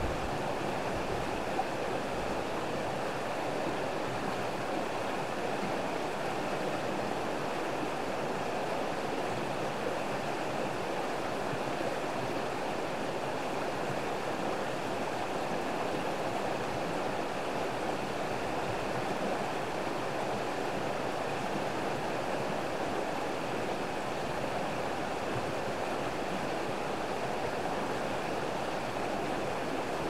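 Shallow rocky stream flowing over stones in riffles: a steady, even rush of water.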